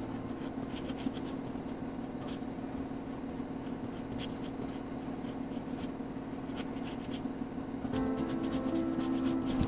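Graphite pencil scratching on drawing paper in short, irregular strokes, with a quicker run of strokes near the end, as small lines around a sketched mouth are drawn.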